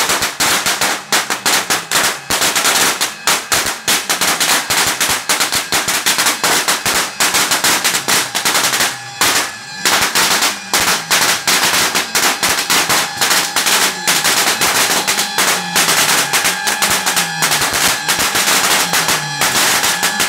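A long string of firecrackers going off, a dense rapid crackle of bangs with a brief lull about nine seconds in.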